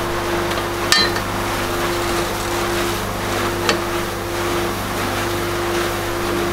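A steady machine hum with a few sharp metallic clinks and knocks, the loudest about a second in and another near four seconds in.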